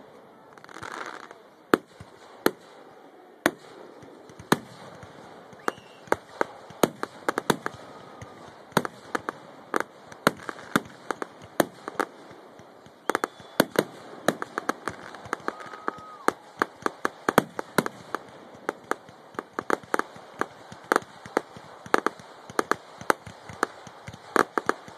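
Aerial fireworks display: sharp pops and bangs from bursting shells, a few spaced apart at first, then a dense run of many a second from about six seconds in.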